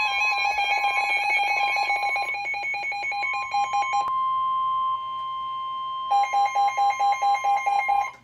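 Emergency alert attention tones for a marine warning: a steady high tone with a second, lower electronic tone beeping over it in fast pulses, the pulsing pausing about four seconds in and resuming about two seconds later. The tones cut off abruptly near the end, where the alert message begins.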